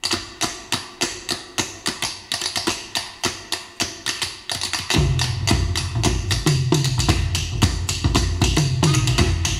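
Tap dancing from a 1977 LP played over loudspeakers: a solo run of quick, sharp taps, about four a second. About halfway through, a band with a deep bass comes in under the taps.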